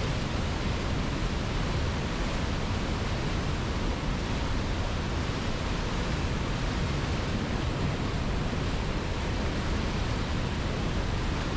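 River water flowing steadily: an even rushing sound, fullest in the low end, with no breaks or changes.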